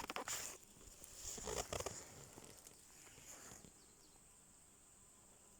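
Faint rustling in grass and undergrowth, in a few short bursts in the first two seconds, over a steady high insect drone.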